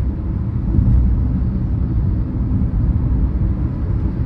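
Steady low road and engine rumble inside a Hyundai Exter's cabin at highway speed, as the car picks up speed on its own under cruise control.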